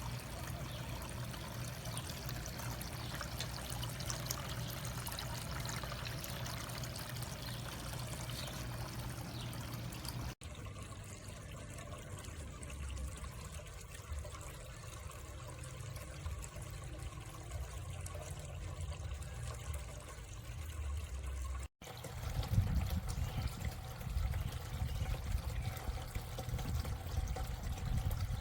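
Water from a pump-driven cascading fountain splashing and trickling steadily down its tiers. The sound cuts out abruptly twice, about a third and about three quarters of the way through, and comes back slightly different each time.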